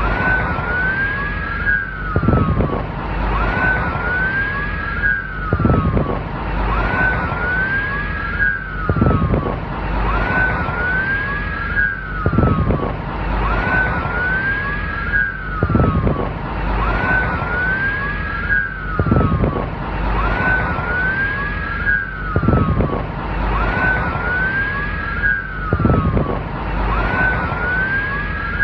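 Police sirens wailing, two rising-and-falling tones overlapping out of step. A low vehicle rumble runs underneath with a short low surge about every three seconds, and the whole pattern repeats evenly as a loop.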